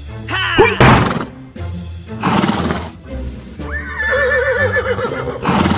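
Recorded horse whinnies dubbed over background music: a short neigh right at the start and a longer, wavering whinny about four seconds in.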